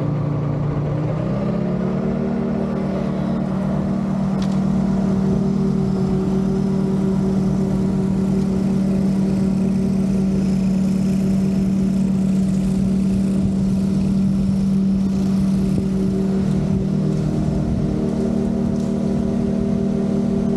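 Walker riding mower's engine speeding up over about the first two seconds, then running at one steady speed.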